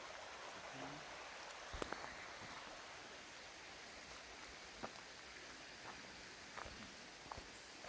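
A few scattered footsteps, short crunches about a second apart and irregular, over a steady background hiss.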